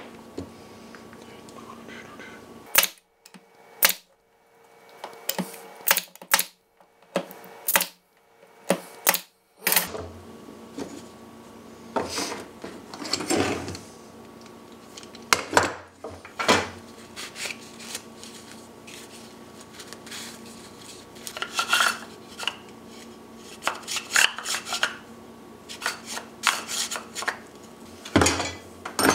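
Scattered clicks, knocks and clatter of wooden blocks and metal bar-clamp parts being handled and set down on a workbench.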